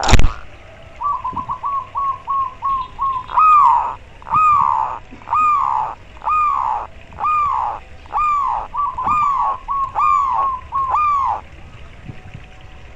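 Zebra dove (perkutut) cooing close by: a run of quick short notes, then about nine louder arched, falling coos roughly one a second with short notes between, ending a little before the close. A sharp thump comes at the very start.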